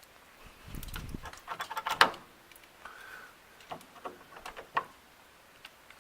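Irregular clicks, knocks and rustling of hands handling a refrigerator while searching for its on/off switch. The loudest knock comes about two seconds in.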